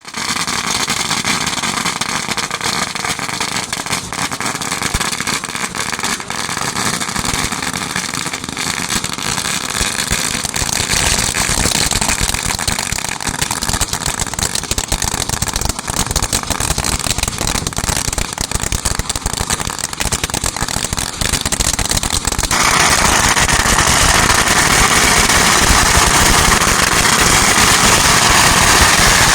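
A large bonfire roaring with dense crackling. About 22 seconds in the sound turns abruptly louder and brighter.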